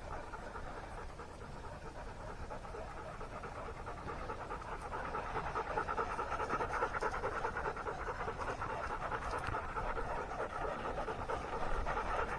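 A hunting dog panting rapidly and steadily, getting louder in the second half.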